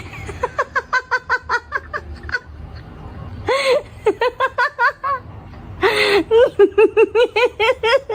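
A person laughing hard, high-pitched, in three fits of quick repeated "ha" syllables, each fit starting with a louder drawn-out note.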